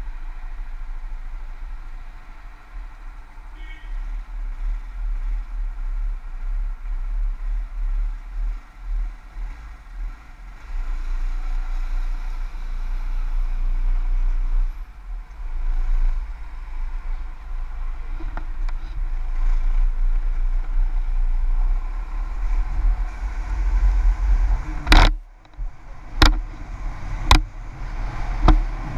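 Yamaha X-City scooter engine running under a steady low rumble, idling at first, then getting louder about ten seconds in as the scooter pulls away and rides. Four sharp knocks come in the last few seconds.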